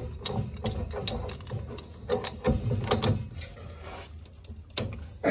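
Steel pipe wrench working the gas piping at a boiler's gas valve: irregular metallic clicks and scrapes of the wrench jaws on the pipe, busiest about halfway through.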